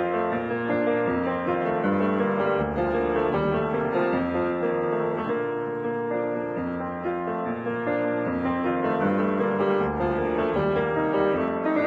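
Piano music, held notes and chords changing at a steady level.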